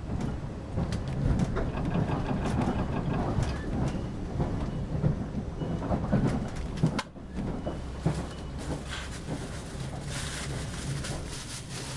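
Interior running noise of a 381 series limited express electric train at speed: a steady low rumble with frequent clicks and rattles from the wheels and car body. About seven seconds in there is a sharp click, then a brief drop in level, and more high hiss near the end.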